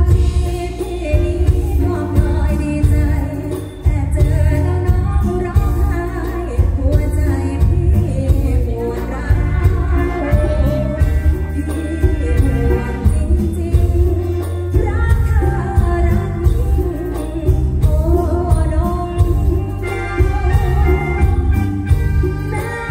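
A live Thai luk thung band plays through a stage PA, with a heavy, steady bass and drum beat, while a female singer sings the melody into a microphone.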